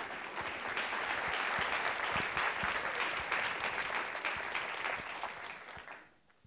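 Audience applauding in a hall, a dense patter of many hands clapping that holds steady and then dies away about six seconds in.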